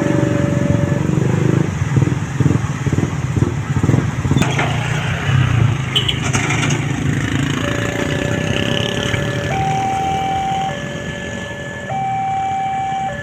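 Electronic warning siren of a railway level crossing, a new type, stepping between a lower and a higher tone every second or so. Through roughly the first half it is buried under the loud rumble of a passing vehicle, with a quick run of regular clacks.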